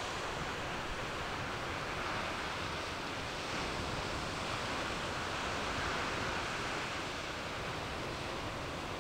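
Ocean surf washing steadily onto the beach, an even rushing noise with no animal calls.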